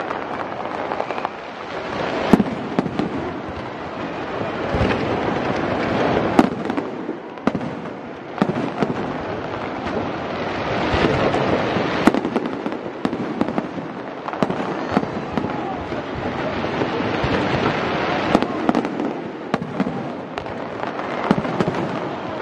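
Aerial fireworks display: a continuous crackle of bursting shells, with sharp bangs at irregular intervals.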